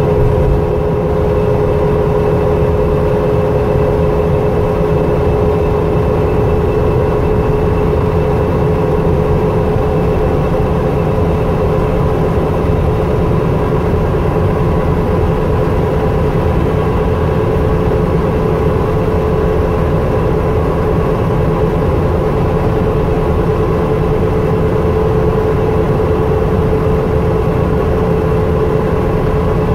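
Heard from inside a New Flyer C40LF natural-gas transit bus cruising at freeway speed: the rear axle's gears give a steady whine (the axle 'singing') over the engine and road rumble. The pitch holds level, a sign of a constant road speed.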